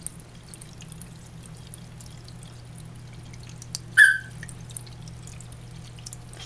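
Water trickling and dripping in a baby red-eared slider turtle tub, over a steady low hum. One short, high, pitched chirp about four seconds in.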